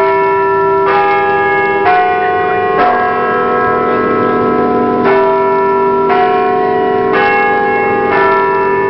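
Church bells ringing, a peal of differently pitched strokes about once a second, each ringing on under the next, with a pause of about two seconds midway.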